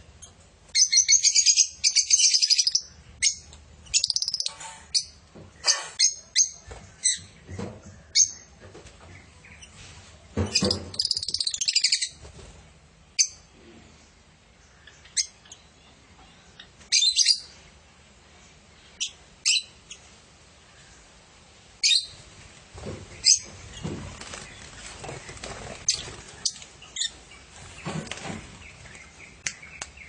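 A flock of lovebirds chattering: loud bursts of high shrill chirps and shrieks, the biggest near the start and about ten and seventeen seconds in, with single sharp chirps between and softer continuous chatter near the end.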